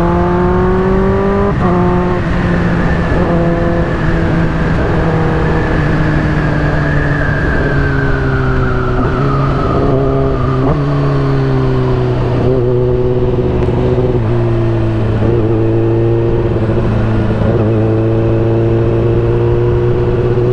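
Kawasaki ZX-10R's inline-four engine and loud exhaust running at a steady cruise, one unbroken drone whose pitch dips slightly about two seconds in and settles lower after about ten seconds. Wind rushes over the microphone throughout.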